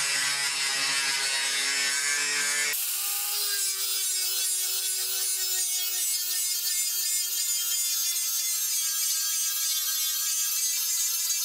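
Angle grinder with an abrasive cut-off disc cutting through a steel table saw blade: a steady, high-pitched grinding hiss over the motor's whine. About three seconds in the sound changes abruptly and loses its low hum.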